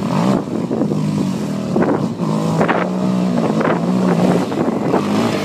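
ATV engine running under throttle as the quad churns through a muddy puddle, its pitch mostly steady with a few brief revs.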